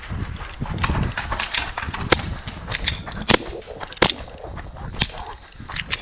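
Airsoft guns firing irregular single shots: sharp cracks, the three loudest about two, three and four seconds in, among fainter ones.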